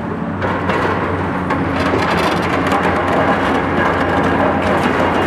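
Diesel engines of Cat high-reach demolition excavators running steadily. Over them comes crunching and clattering of concrete and steel debris, which starts about half a second in and grows denser around two seconds in.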